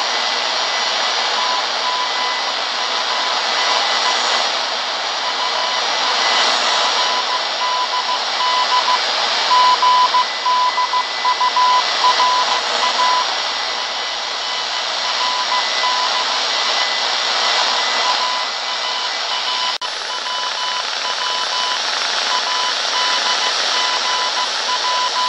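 Morse code signal on a shortwave receiver: a tone of about 1 kHz keyed on and off in dots and dashes over a steady band of static hiss. A fainter second keyed tone joins in the later part.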